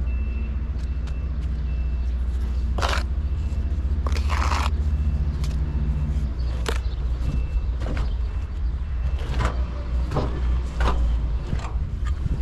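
A heavy machine's engine running with a steady low rumble, with faint short high beeps on and off and scattered knocks and scrapes.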